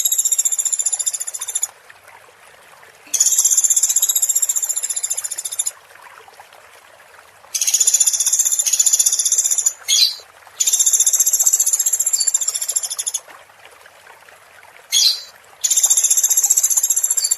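A recorded high, rapid buzzing trill, of the kind played as masteran for training contest songbirds. It repeats in bursts of about two and a half seconds with short pauses between, five in all, over a faint steady hiss of running water.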